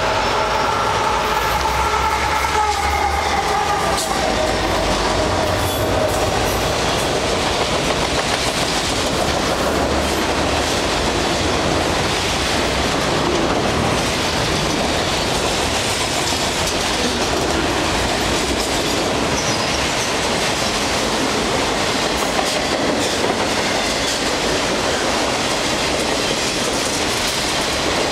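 Fast freight train passing close by. In the first few seconds the lead locomotives go by with a slowly falling whine. Then a long string of autorack cars rushes past with steady wheel rumble and clatter on the rails.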